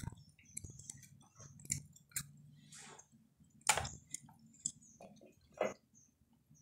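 A person chewing food with scattered wet mouth clicks and a few short crunchy bites, strongest just before the middle and near the end.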